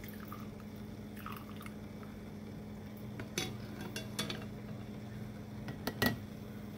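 A few light clinks and taps of kitchenware, glass canning jars and a stainless pot, with the loudest pair about six seconds in, over a steady low hum.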